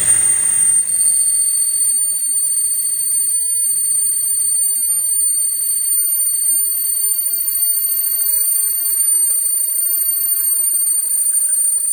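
A workshop machine giving a steady high-pitched whine at one unchanging pitch, after a duller rushing machine noise dies away in the first second.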